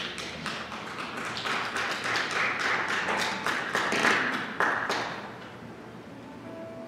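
Congregation clapping, many hands at once, for about five seconds before it stops.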